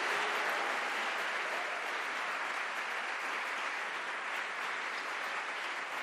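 Audience applauding steadily, easing a little toward the end.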